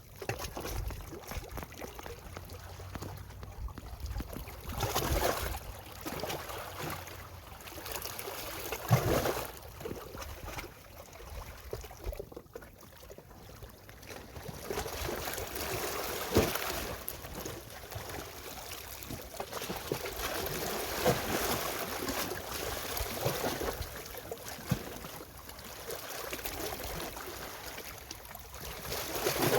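Sea waves washing onto the shore: a rushing of water that swells and fades every few seconds, with sharper splashes about nine and sixteen seconds in.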